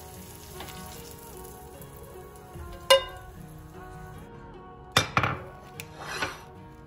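Faint sizzling from a hot frying pan as a fried egg is slid off it onto toast, with a sharp ringing clink about three seconds in. Near the end, a few loud knocks and clatter of a ceramic cup and plate set down on a stone counter, over soft background music.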